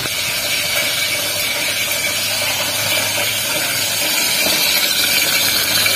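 Chillies frying in oil in a pan on a gas stove, a steady, even sizzling hiss.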